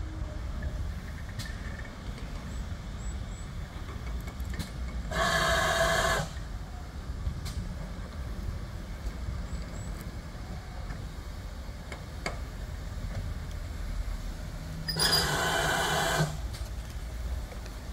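Steam locomotive letting off two short hissing blasts of steam, each about a second long, roughly ten seconds apart, over a steady low rumble.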